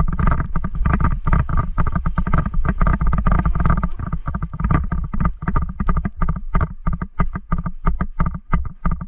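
Movement and action noise at the start of an airsoft game: rapid clicks and knocks, several a second, over a loud low rumble. The knocks become sparser and more distinct in the last few seconds.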